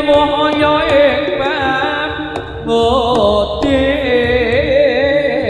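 Live Jaranan music: a Javanese gamelan-style ensemble with held metallic tones and steady drum beats under a wavering, ornamented lead melody.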